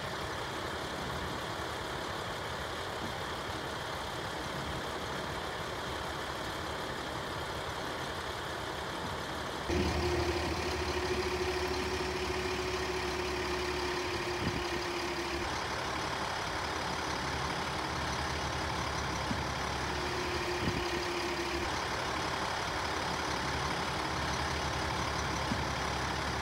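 Fire engine's engine running steadily, mixed with the noise of the fire and wind. About ten seconds in the sound cuts to a louder, deeper engine rumble with a steady hum that holds for several seconds, stops, and comes back briefly.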